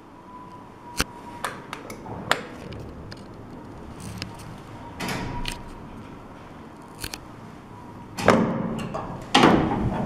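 Old Zremb passenger lift arriving at a landing: a steady high hum with scattered clicks while the car travels, then loud clattering near the end as the manual landing door and the car doors are opened.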